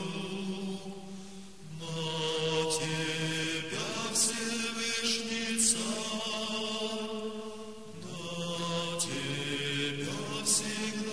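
Slow male chant with words sung on long held notes that move to a new pitch every second or two.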